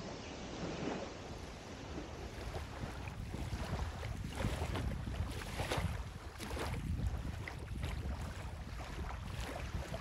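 Wind buffeting the microphone in gusts with a low rumble, over small waves lapping on a sandy shore.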